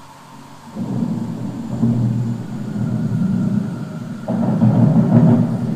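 Thunder rumbling, coming in suddenly about a second in and swelling again louder about four seconds in, a low, rolling rumble.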